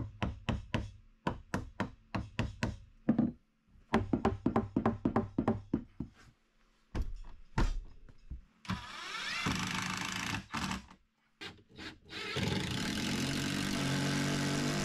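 A hammer knocking on a wooden shelf support in two runs of quick taps. Then a cordless drill twice spins up with a rising whine and runs steadily, driving screws through the pine shelf into the wall.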